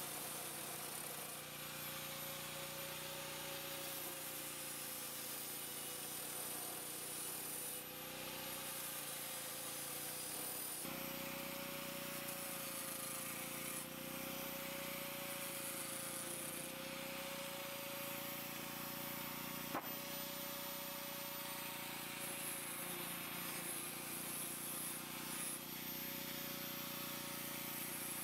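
Angle grinder running against the edge of a round sheet-steel disc, grinding the rim of a chimney cap: a steady whine with a hiss over it, turned well down in the mix.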